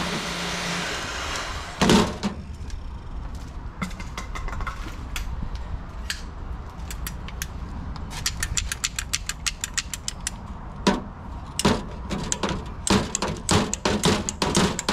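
Electric heat gun's fan winding down after being switched off, followed by a sharp clunk about two seconds in and then many light, irregular clicks and rattles in clusters, like small metal parts and tools being handled.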